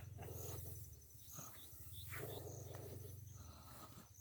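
Faint insect chirping: short high chirps about once a second, over a steady low hum.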